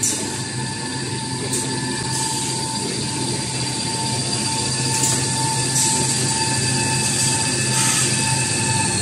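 Paper roll production line running: the log saw cutting machine and roll conveyors make a steady mechanical hum with a high whine that drops in pitch near the end, and a few sharp clacks.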